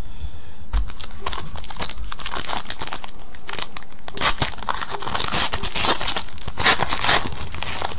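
Shiny foil wrapper of a football trading-card pack being torn open and crinkled by hand, a run of crackling rustles that grows louder in the second half.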